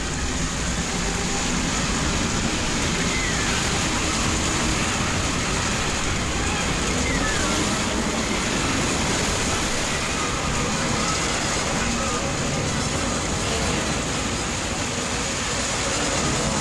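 Storm at sea: wind and heavy waves breaking over a small wooden sailing boat, a loud, steady rushing noise with faint cries in it.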